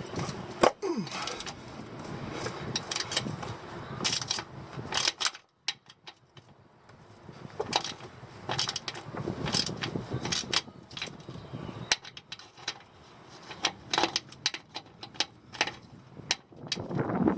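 Ratchet wrench clicking in irregular runs, with knocks of metal tools, while a plug on a truck's transfer case is being worked loose. It goes nearly quiet for a moment about five seconds in.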